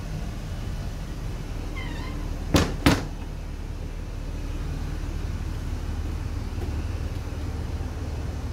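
A steady low hum throughout, with a brief high squeak about two seconds in and two sharp knocks close together just after.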